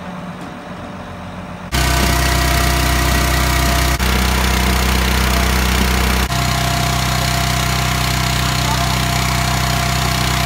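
Engine running steadily and loudly up close, from about two seconds in, after a quieter engine hum at the start; the tone shifts abruptly twice further on.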